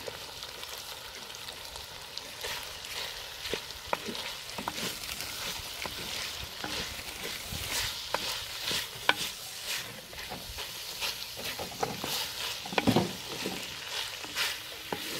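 Chicken, onion and freshly added chopped tomato frying in ghee in an earthenware pot, sizzling steadily while a ladle stirs and scrapes against the clay in irregular clicks and strokes, with a louder run of scrapes about thirteen seconds in.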